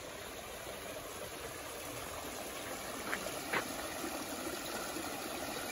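Steady wash of running water from a small garden stream among rocks, with two short faint clicks a little past the middle.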